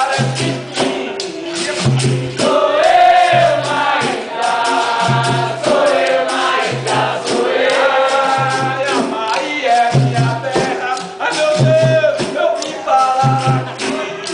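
Capoeira roda music: a group singing together over a steady beat of berimbau and atabaque drum, with a low note pulsing about once a second under the voices.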